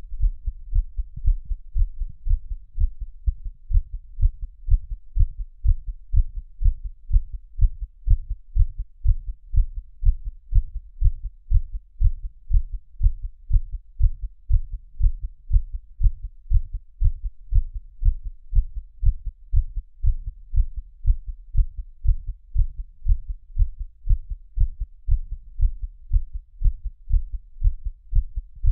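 A person's heartbeat beating in a steady, even rhythm, each beat a low thud.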